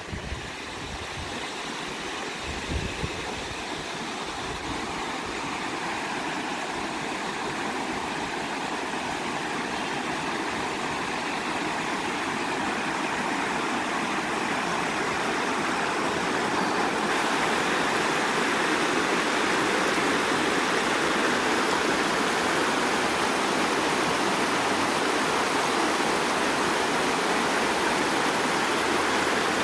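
Overflow water spilling over a dam and rushing over rock ledges in a shallow stream below it: a steady rush that grows gradually louder through the first half and then holds steady.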